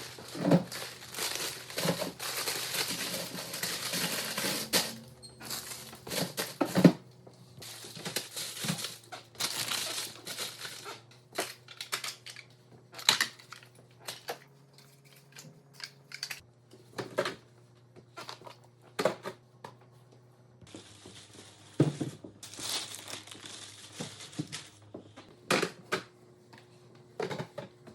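Grocery packaging crinkling and rustling in several long stretches, with scattered knocks and clunks of food items being set down on fridge shelves.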